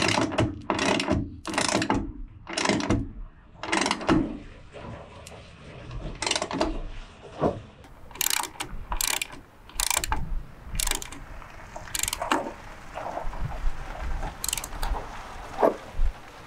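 Ratchet wrench tightening a 3/8-inch grade 8 hex-head bolt, clicking in quick repeated strokes, with a quieter pause partway through before the strokes start again.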